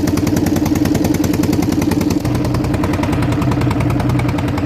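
A motor fishing boat's engine running steadily under way, with a rapid, even chugging beat. About two seconds in, a deeper hum joins it.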